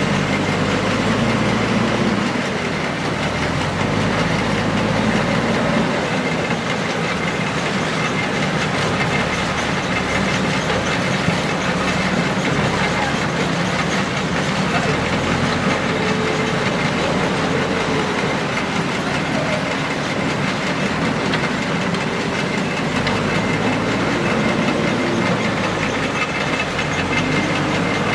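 Diesel engines of a backhoe loader and tractors running steadily, their tone wavering up and down now and then as the machines work.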